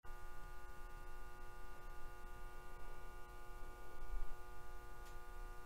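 Faint steady electronic hum made of several held tones over a low rumble, unchanging throughout.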